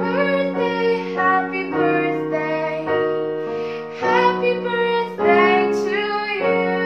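A girl singing a slow melody while accompanying herself on a Yamaha electronic keyboard, which plays held chords that change every second or so.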